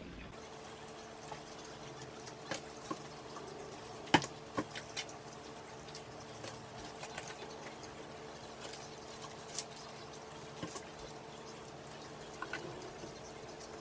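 Chewing while eating chicken McNuggets: quiet mouth sounds and scattered small clicks, the loudest about four seconds in, over a faint steady hum.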